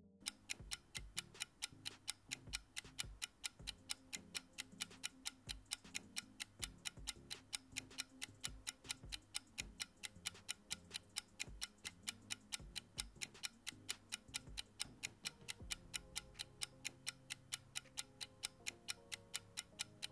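Countdown timer sound effect: even clock-like ticking, several ticks a second, that stops at the end, over faint background music.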